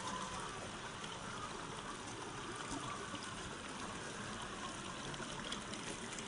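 River water flowing and trickling, a steady, even rush.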